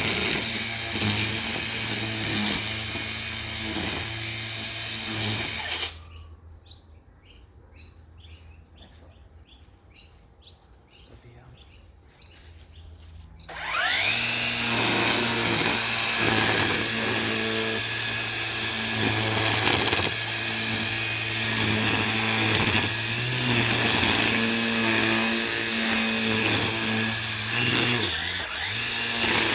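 Makita brushless battery power head with a whipper snipper (line trimmer) attachment running while trimming the yard. It cuts out about six seconds in, then starts again about eight seconds later with a rising whine as it spins up, and runs steadily.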